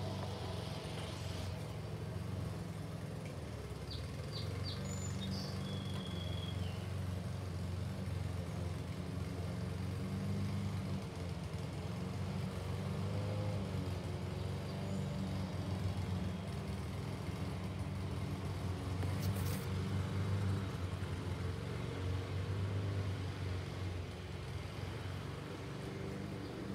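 Low, steady rumble of a CSX train's diesel locomotives running out of sight, swelling and easing slightly.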